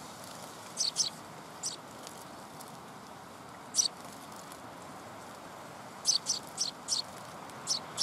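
Small songbirds giving short, high chirps: a few single notes early on, then a quick run of four or five about six seconds in, over a steady background hiss.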